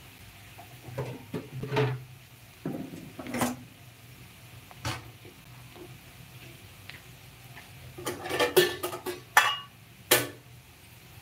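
Metal kitchen utensils and pots clinking and knocking in short, scattered clatters, with a busier run of clinks about eight seconds in and a last sharp clink about ten seconds in.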